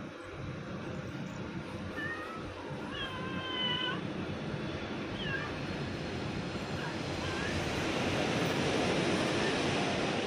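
Tabby cat meowing several times: a short meow about two seconds in, a longer drawn-out one a second later, then a few shorter, fainter ones. A steady hiss runs underneath and grows louder near the end.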